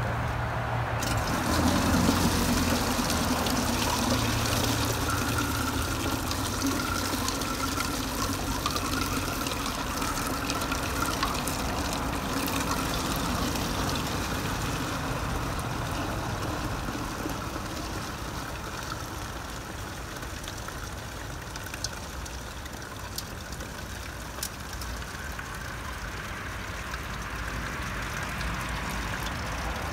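Black walnut dye bath poured from one enamelware pot through a metal strainer into another, straining out the walnuts: a steady pour of liquid, heaviest in the first seconds and easing to a thinner stream.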